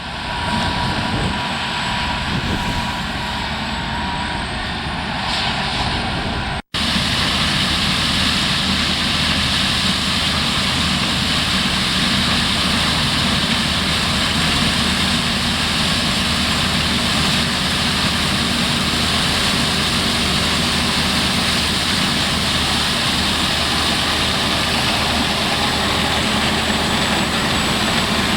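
Combine harvester working close by: a loud, steady mechanical drone of engine and threshing gear. The recording cuts out abruptly about seven seconds in and resumes louder and fuller.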